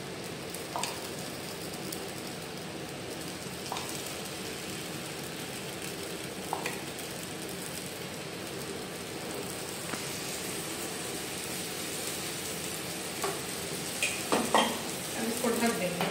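Semolina batter sizzling gently in a nonstick frying pan over a low gas flame, with a few faint clicks every few seconds as the batter is spread. Near the end a glass pan lid clatters as it is set onto the pan.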